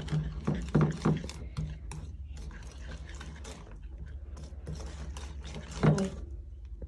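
Wire whisk beating thick cake batter in a ceramic bowl: a fast, continuous run of clicking and scraping as the wires hit the bowl, with one louder knock about six seconds in.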